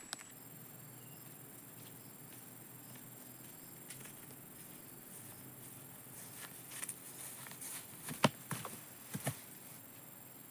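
Faint outdoor ambience with a steady high insect hiss and light footsteps on a grassy path. About eight and nine seconds in come a few sharp knocks, the loudest sounds, which fit a person dropping to the ground.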